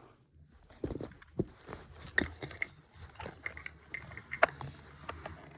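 Light, scattered clicks and taps of plastic toy food and a toy knife being handled, with one sharper click about four and a half seconds in.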